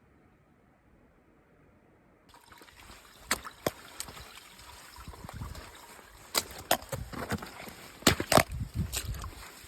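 Water splashing and trickling, with irregular sharp clicks and knocks, starting a little over two seconds in after faint hiss.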